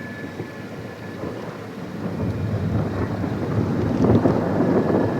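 Rumbling thunderstorm noise of thunder and wind, swelling about four seconds in, with a faint steady siren tone behind it.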